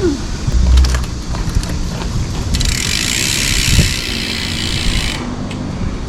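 Aerosol degreaser hissing in one steady spray of about two and a half seconds onto a bicycle's sprocket and chain, with a few light clicks before it and wind buffeting the microphone.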